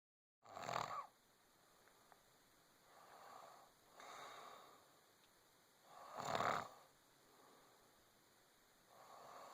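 A pregnant woman snoring in her sleep: two loud rasping snores about five and a half seconds apart, with softer snoring breaths between them.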